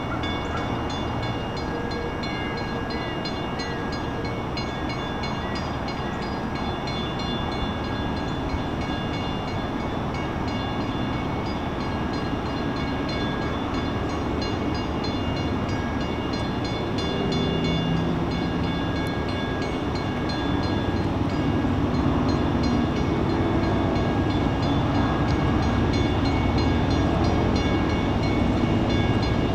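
A railroad crossing signal's WCH mechanical bell ringing rapidly and steadily while the crossing is activated. Under it the low rumble of approaching diesel locomotives grows louder from a little past halfway.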